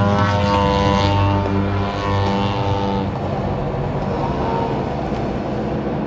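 Engine of a Yak 54 radio-controlled aerobatic model plane running in flight, a steady pitched drone that is strong for the first few seconds and then grows fainter, with a gentle rise and fall in pitch about four and a half seconds in.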